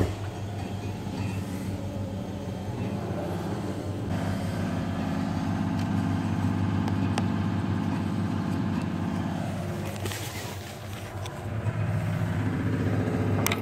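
Bumblebee buzzing steadily while trapped in a drinking glass, fading about ten seconds in and then coming back.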